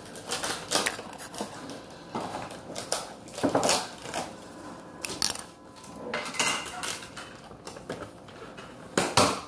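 Red-handled scissors snipping and clicking while cutting the rubber band off a bundle of synthetic crochet hair, with rustling and handling knocks in an irregular run. The loudest burst comes near the end.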